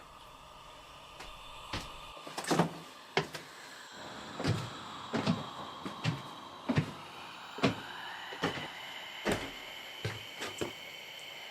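A run of sharp knocks and thuds, roughly one a second and uneven in strength, typical of the strange noises of an old house. Beneath them a faint steady high tone rises in pitch about eight seconds in.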